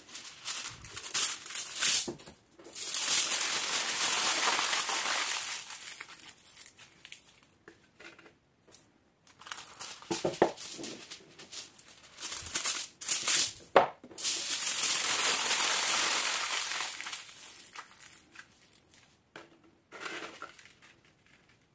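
Aluminum foil being handled by hand, pulled off its roll and crumpled into balls: sharp crinkling and crackling, with two longer stretches of steady rustling, each a few seconds long.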